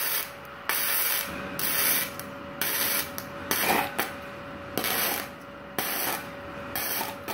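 Gasless flux-core MIG welding arc crackling in short bursts, about one a second, as thin hollow steel tube is stitch-welded in stages rather than in one long bead.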